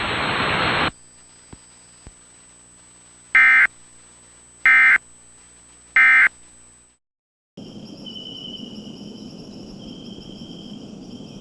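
Three short, shrill digital data bursts about a second and a half apart: the Emergency Alert System's end-of-message code, which closes an EAS test. After a brief dropout, faint steady high tones sound over a low hiss.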